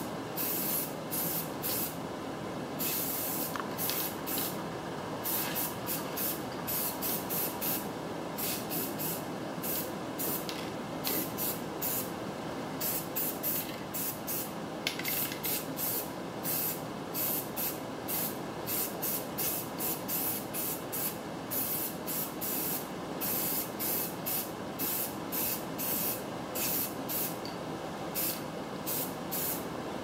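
Aerosol spray-paint can hissing in many short bursts, roughly two a second with a few longer ones, as black paint is sprayed onto a steel trailer wheel.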